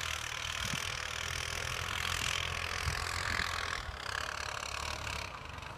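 ATV engine running steadily with a low hum, along with a broad hiss that drops away near the end.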